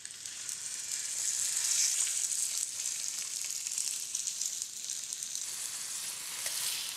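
Veal shanks searing in hot oil in an enamelled pot: a steady sizzle that builds over the first couple of seconds as the pieces go in, then holds. This is the browning stage of osso buco.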